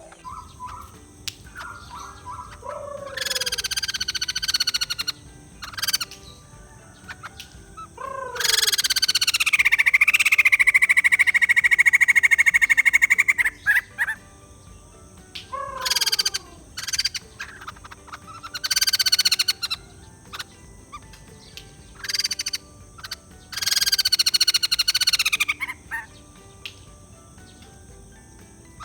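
White-crested laughingthrush calling in loud, overtone-rich outbursts with bending and falling pitch, about six of them separated by pauses; the longest, about eight seconds in, lasts some five seconds. A steady high tone sits behind the calls.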